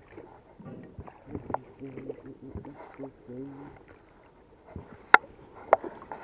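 Inflatable rowboat being rowed: oars creaking and knocking in their oarlocks, with water noise, and a few sharp knocks near the end.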